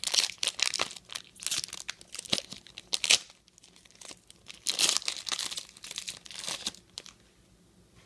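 Trading card pack wrapper being torn open and crinkled by hand, in irregular bursts of rustling that stop about a second before the end.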